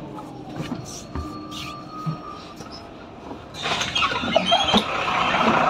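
Heuliez GX 427 city bus heard from the inside, quiet at first with scattered clicks and knocks, then about two-thirds of the way in a loud rushing noise comes in suddenly and stays.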